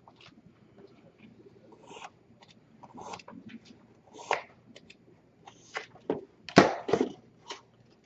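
Snap-off utility knife blade cutting through the paper board of a model cube: a series of short scratchy strokes, the loudest about four seconds in and a few more around six and a half to seven seconds.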